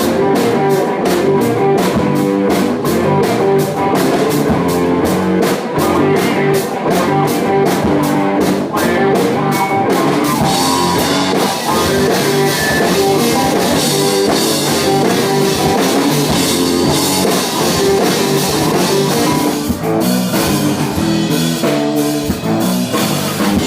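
Rock music: guitar and drum kit playing a steady beat, the sound growing fuller about ten seconds in.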